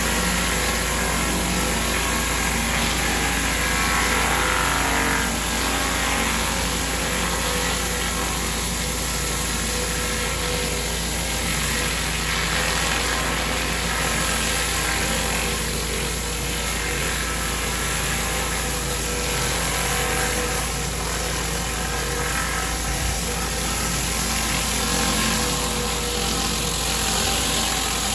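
Engine-driven pressure washer running steadily, its water jet spraying the driveway surface.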